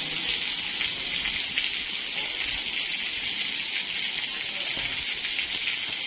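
Rain falling steadily on tree leaves and a pool of water, an even sound without breaks.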